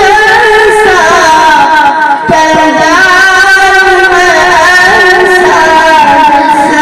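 A young singer's solo voice singing a naat, a devotional song praising the Prophet Muhammad, into a microphone: long held notes broken by ornamented, wavering turns.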